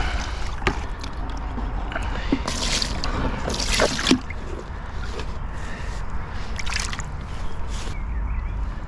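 Water sloshing and splashing in a few short bursts, loudest a couple of seconds in and again near the end, while a freshly caught pike is handled, over a steady low rumble.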